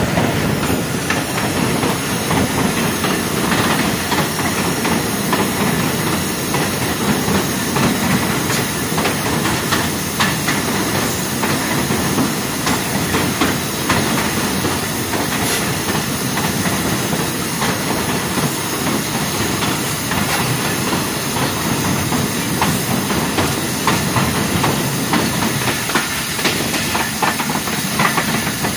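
Passenger train running at speed, heard from an open coach door: a steady rumble of wheels on the track with frequent clicks from the rail joints, and wind rushing over the microphone.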